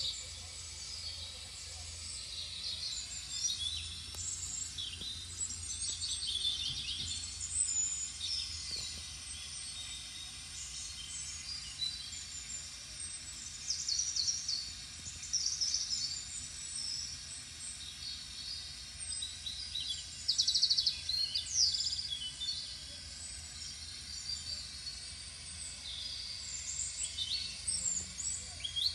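Small birds chirping and twittering in short, irregular calls throughout, over a steady low hum.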